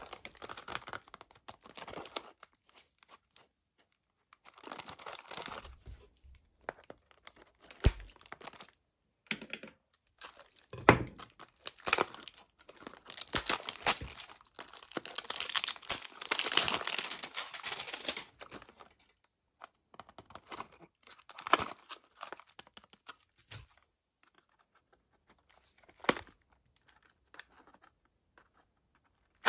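Clear plastic wrap being torn and crinkled off a gold-foil cardboard toy box, in irregular bursts of crackling with pauses, busiest in the middle. Near the end a knife point scrapes and clicks at the box's cardboard seam.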